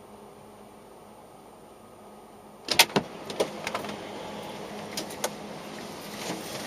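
A low steady hum, then a sharp loud click a little under three seconds in, followed by several lighter clicks and knocks as the background noise grows louder.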